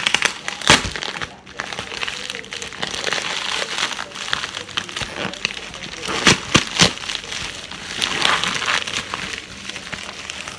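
Plastic courier mailer bag crinkling and rustling as it is pulled open and handled. Sharp crackles come about a second in and twice past the middle.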